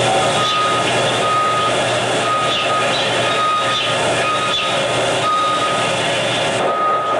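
A high electronic beep repeating several times at uneven intervals, each beep about half a second long, over a loud steady hiss of noise.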